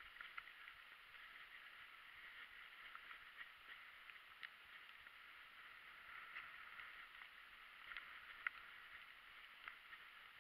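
Faint, steady rustle of fat mountain-bike tyres rolling over dry leaves on a dirt trail, with scattered light ticks and rattles from the bike and a sharper click about eight seconds in.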